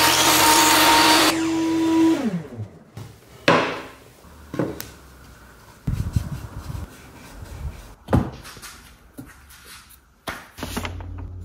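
A power tool running, switched off about a second in, its pitch falling as it winds down. Scattered knocks and clatters of wood being handled follow, and a low steady hum starts near the end.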